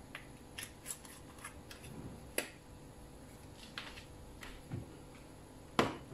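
Faint, scattered ticks and light crackles from a hot non-stick frying pan with olive oil spreading in it. A single louder knock comes near the end.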